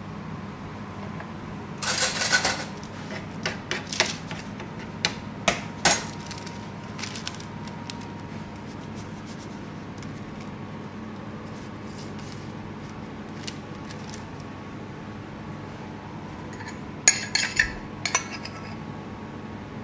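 Metal kitchen utensils, a truffle slicer and a steel tray, clinking and clattering on a stainless-steel counter. A short scraping rattle comes about two seconds in, a few sharp clinks follow over the next four seconds, and another brief clatter comes near the end, all over a steady low hum of kitchen equipment.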